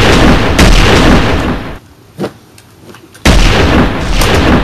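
Loud gunfire sound effects, each shot a sharp blast with a long rumbling tail. One comes about half a second in, a short pop follows a little after two seconds, and two more shots come near the end, about a second apart.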